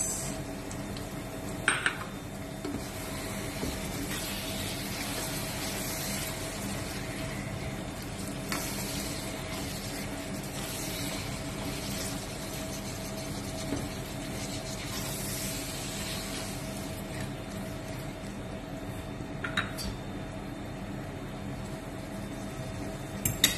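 Silicone spatula stirring and scraping a sautéing mix of grilled eggplant, tomato and onion in a nonstick pan, with a light sizzle. A few sharp knocks of the spatula against the pan: one about two seconds in, one near the end.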